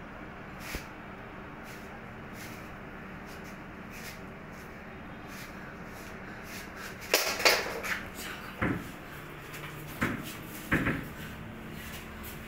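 Knocks and bumps against a wooden storage cabinet: a quick cluster about halfway through, then three single knocks over the next few seconds, over a steady low hum.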